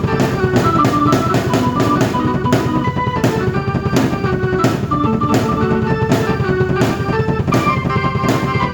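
A drum kit and keyboard played together by one player: a steady, busy beat of drum strikes under keyboard melody and chords.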